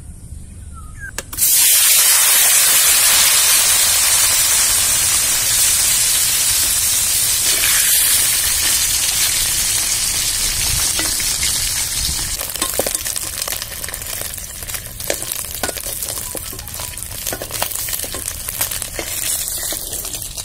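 Peeled hard-boiled duck eggs, coated in turmeric and salt, frying in hot oil in an iron karahi. A loud sizzle starts suddenly about a second in and slowly dies down, with scattered pops and crackles in the later part.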